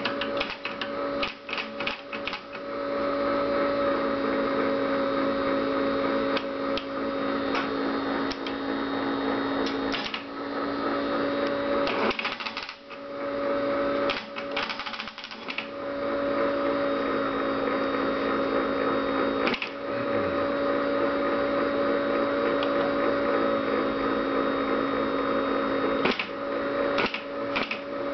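Tracor AN/UGC-129 airborne teletype running with a steady hum, its keyboard keys clicking as they are typed in short runs near the start, in the middle and near the end.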